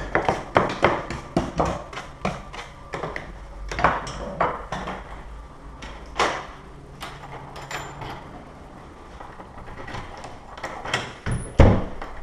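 Scattered clicks and knocks of a door and its deadbolt hardware being handled, with a heavier thud a little before the end.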